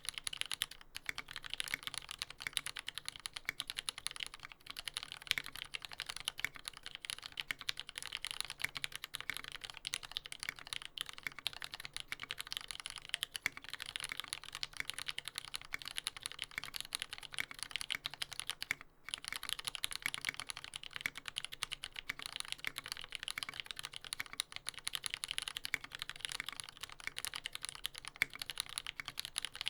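Continuous typing on a TX75v2 mechanical keyboard with lubed retooled black linear switches on a brass plate: a dense stream of keystrokes, with a brief pause about nineteen seconds in.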